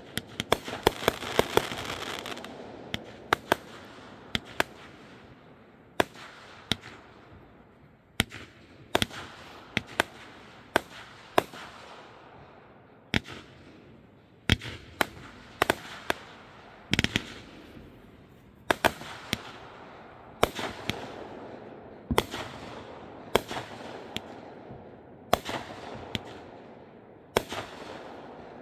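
Consumer firework cake firing shot after shot: a quick cluster of sharp bangs with crackling in the first two seconds, then single sharp launch reports about once a second, each trailing off in a short fading hiss.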